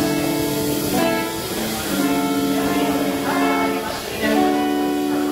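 Live band music from electric guitars and bass, with held chords that change every second or two.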